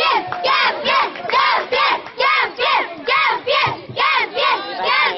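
Crowd of children chanting a rhythmic cheer, high-pitched voices shouting in unison about two to three times a second.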